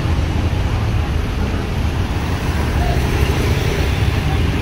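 Intercity bus's diesel engine idling steadily, with road traffic noise around it.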